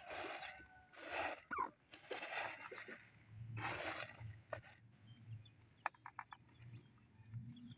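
A hand sweeping loose chicken feed across cardboard, four rustling strokes over the first four seconds. After that a hen clucks softly and low, with a few faint high chirps.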